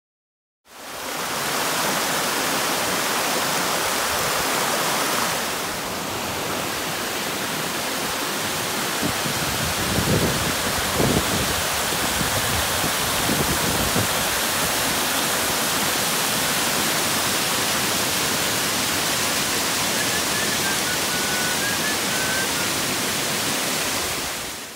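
Mountain waterfall cascading over rock ledges: a steady, loud rush of falling water. A few low bumps come between about ten and fourteen seconds in, and faint short high chirps come near the end.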